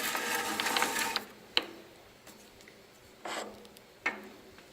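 Steel quick-change tool post holder being handled and adjusted: a metallic scraping rattle with many small ticks for about a second, then a few single clicks and a knock.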